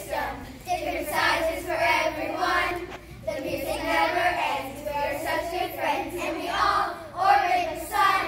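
A group of children singing together in unison, in short phrases with brief breaks between them.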